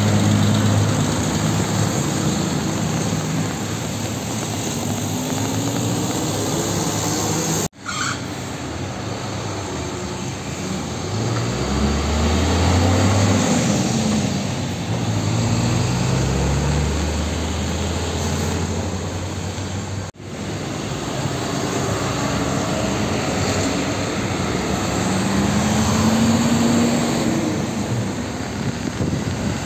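Diesel tractor-trailer trucks driving past one after another over steady road traffic noise, their engine pitch rising several times as they pull away through the gears. The sound drops out abruptly twice.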